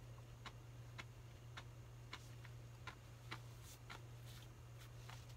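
Faint sharp ticking, about two ticks a second, over a steady low hum.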